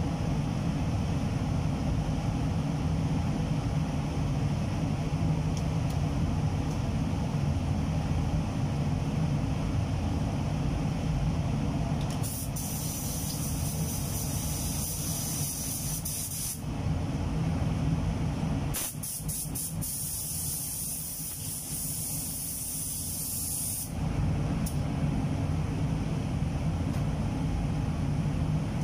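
Paint spray gun hissing in two long bursts of compressed air as it sprays clear coat: the first about twelve seconds in for about four seconds, the second about nineteen seconds in for about five seconds. Under it runs the steady low drone of the spray booth's ventilation.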